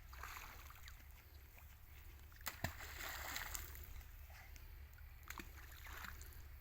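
A stone dropping into water: a sharp plop about two and a half seconds in, followed by about a second of splashing, with fainter splashes near the start and near the end.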